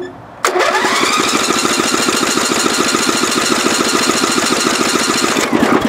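Electric starter cranking a Craftsman lawn tractor's 11 HP Briggs & Stratton engine for about five seconds without it catching: a steady starter whine over a fast, even chugging, starting about half a second in and winding down near the end. The engine won't start, which the owner guesses is a sheared flywheel key.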